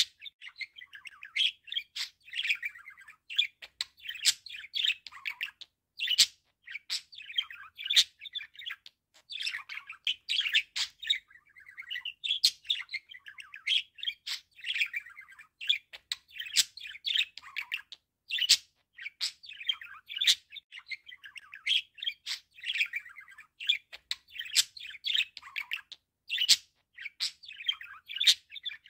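A budgerigar warbling: a steady stream of fast, scratchy chirps and chatter broken by sharp clicks, with brief pauses.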